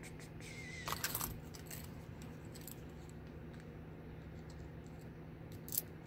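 Faint metallic clicks and clinks from a lock and its tools being handled: a small cluster about a second in and one sharp click near the end.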